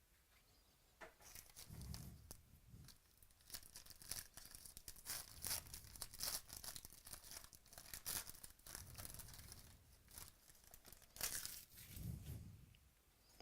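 Crinkling and tearing of a trading-card pack's plastic wrapper as it is opened and the cards are pulled out: irregular soft crackles and rustles, busiest in the middle.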